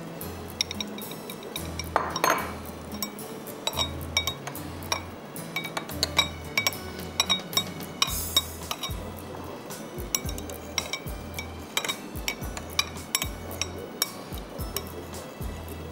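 Clinks and taps of utensils against glass and crockery dishes, scattered and irregular, over background music with a pulsing bass line.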